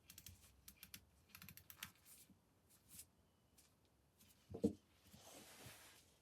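Faint scattered clicks and light taps, then a single louder knock about four and a half seconds in, followed by a brief hiss.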